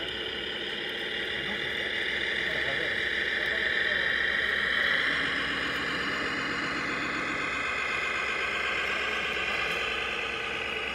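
Radio-controlled Komatsu HD405 scale dump truck driving loaded, likely uphill: a steady whine of its electric drive and gears with a lower engine-like hum. The whine swells to its loudest about four to five seconds in, then eases off a little.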